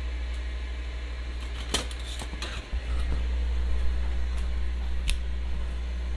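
A few sharp metal clicks and clinks as kitchen tongs are picked up and handled, over a steady low hum.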